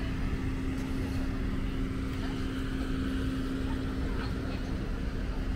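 Steady low rumble of street traffic with a constant droning hum from an engine or machine, easing slightly after about four seconds.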